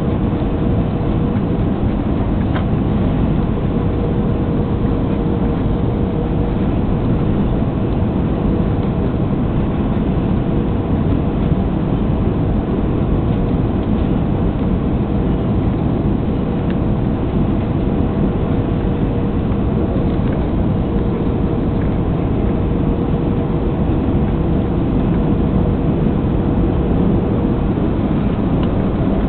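Cabin noise inside a TAM Airbus A320 on final approach: a steady rush of engine and airflow noise with a steady whine running through it. The whine stops near the end.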